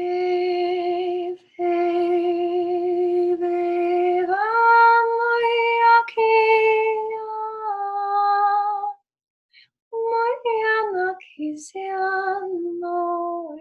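A woman's voice singing long held tones without words, unaccompanied. The pitch steps up about four seconds in and settles a little lower near eight seconds; after a short break she sings shorter notes that slide between pitches.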